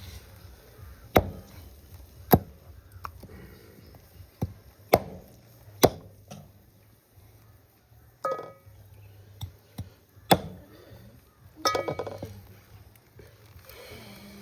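Irregular chopping: a blade striking a cutting surface about five times hard, with lighter knocks between, typical of cutting up meat for a curry. Twice a short ringing metal clink sounds among the chops.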